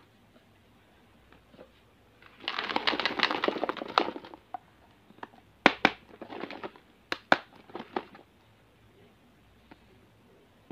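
Hard plastic being handled: about two seconds of dense crackling rustle, then a few sharp clicks and knocks with softer rustling between them, as a round plastic lunch box is picked up and its lid worked.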